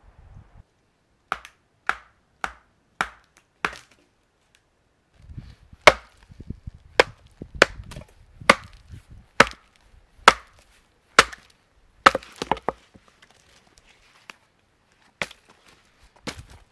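Bushcraft knife chopping into a half-rotten stick of deadwood, a series of sharp woody knocks: five quick strokes, a short pause, then a steadier run of strokes, a quick flurry and two last ones near the end.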